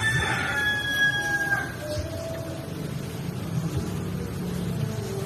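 Rooster crowing, one long held crow that ends about two seconds in, over a steady low hum.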